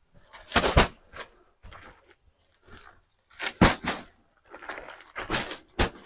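Plastic-wrapped bales of pine shavings being carried and set down on a dirt floor: several short thuds and crinkles of the plastic wrapping.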